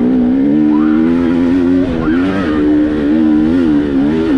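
Dirt bike engine running under way at steady moderate revs, its pitch rising and dipping slightly a few times as the throttle is worked.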